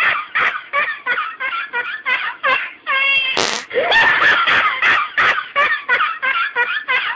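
Someone laughing hysterically in rapid, high-pitched bursts of about four a second, with a drawn-out squeal and a short hissing gasp about three seconds in.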